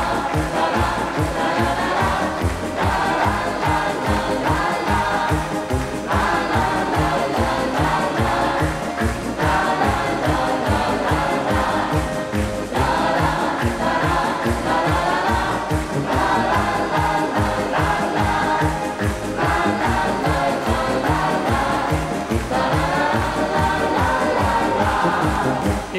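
Upbeat music with a steady beat and a choir singing in repeated phrases of about three seconds each.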